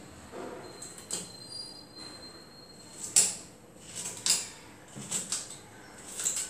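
A knife slicing chunks off a raw mango held in the hand over a steel tumbler: five or so sharp, crisp cuts about a second apart.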